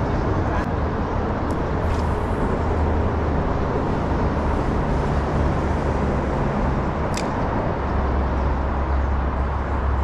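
Steady low rumble of road traffic crossing the concrete bridge overhead, with a short click about seven seconds in.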